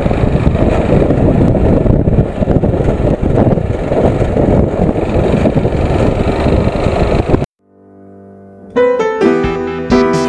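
Wind and running noise of a motorcycle riding at road speed, heavy in the low end. It cuts off suddenly about three-quarters of the way through, and after a brief silence a piano melody begins.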